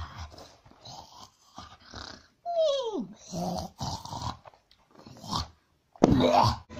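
Short growling, dog-like vocal sounds broken by pauses, with a falling whine about two and a half seconds in and a loud rising cry near the end.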